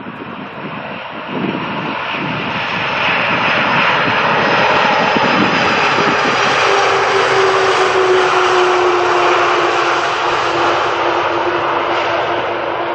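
Jet airliner passing overhead on approach to land. Its engine noise builds over the first few seconds to a loud, broad peak, and a whining tone appears about halfway through and slides slowly lower as the plane goes by. Wind buffets the microphone at the start.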